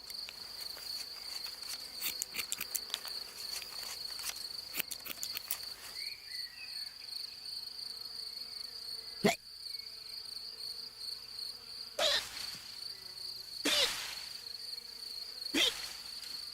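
A steady high cricket trill, with a rapid run of small clicks in the first few seconds. From about halfway through come four short, sharp hiccups, each falling in pitch, about two seconds apart.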